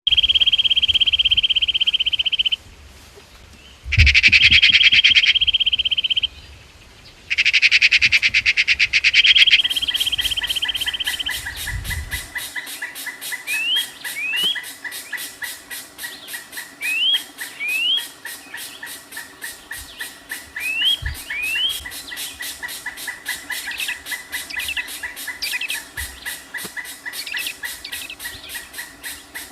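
Songbird known in Indonesia as the kincrong singing: long, loud, high buzzing trills in three bouts, then a fast, steady, rattling chatter with pairs of short rising whistles repeating every few seconds.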